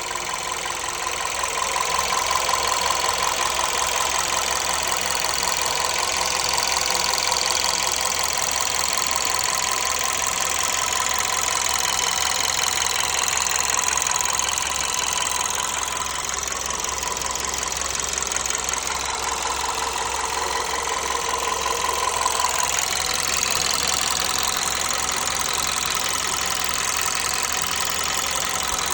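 Volkswagen 1.2 TSI (CBZB) four-cylinder turbo petrol engine running steadily with a knocking noise from the engine.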